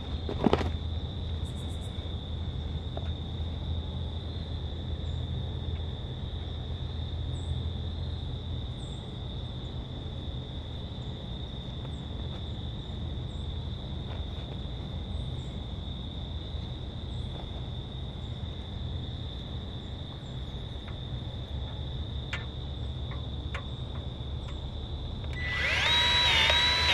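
Insects droning steadily at a high pitch over a low hum, with a sharp click about half a second in. Music comes in near the end.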